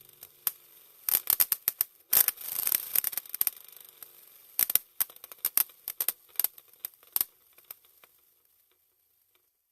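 Irregular sharp crackles and pops from the iPE exhaust of a W204 Mercedes-Benz C63 AMG's naturally aspirated V8, with no steady engine note under them. They come in scattered clusters and stop about seven seconds in.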